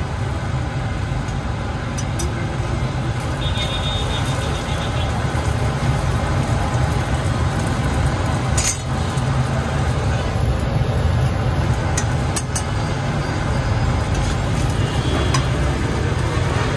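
Steady rumble of road traffic, with a few sharp clinks of a metal spatula on a steel griddle and faint background voices.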